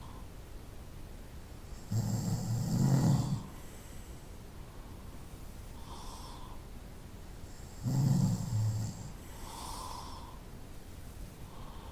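A person snoring: two loud snores about six seconds apart, each lasting about a second and a half, with soft breaths between them.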